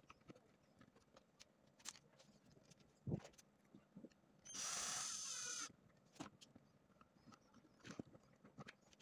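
A small electric screwdriver whirs for about a second, driving a screw into the plastic side cover of a miniature diesel engine model. Around it are light clicks and taps of plastic parts being handled, with a louder knock about three seconds in.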